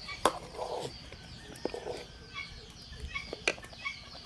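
Chickens clucking, with a few sharp knocks, the loudest about a quarter second in and another about three and a half seconds in.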